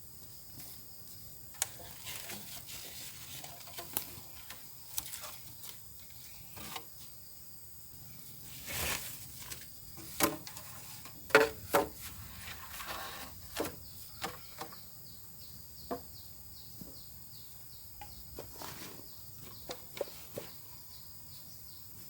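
Insects droning steadily in a high pitch, with scattered knocks, clicks and rustles of handling, the loudest knocks coming in a cluster about halfway through.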